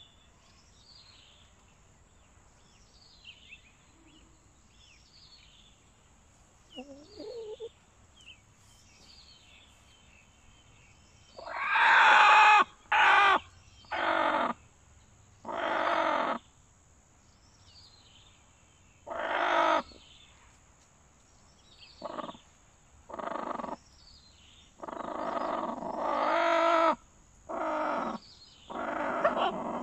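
Chickens calling loudly: a run of about ten harsh, pitched calls, most under a second long and one of about two seconds, starting about twelve seconds in. Before them, faint high chirps of a small bird, each falling in pitch, repeat about once a second.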